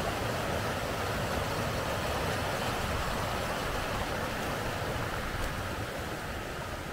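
Steady rush of hot spring water flowing in an open stream, easing slightly near the end.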